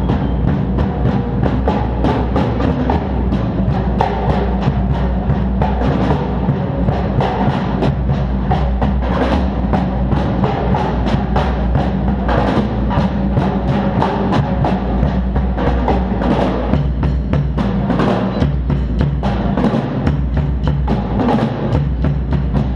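Drums played with many quick strokes over a continuous deep bass.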